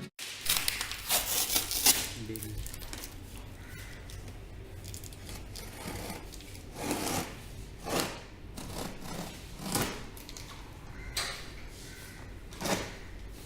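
Packaging being handled during an unboxing: intermittent rustling, crinkling and scraping, busiest in the first couple of seconds and then in single short bursts.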